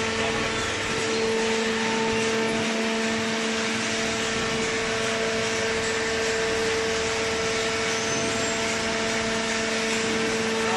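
Hydraulic baling press running: a steady machine hum, a constant low drone with a second tone above it over an even hiss.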